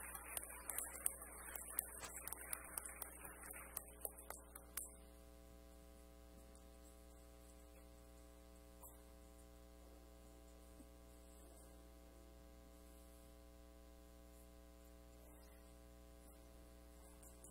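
Audience clapping for about five seconds, stopping suddenly. After that only a steady electrical mains hum is left.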